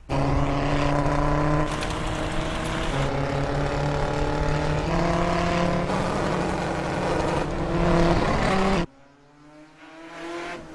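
Vintage racing car engine running hard at speed, its pitch stepping up and down several times, cutting off abruptly about nine seconds in.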